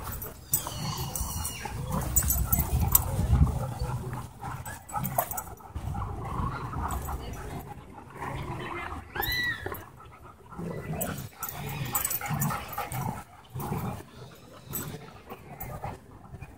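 A group of dogs playing and jostling together, with scuffling, short vocal sounds and one high rising-and-falling whine about nine seconds in.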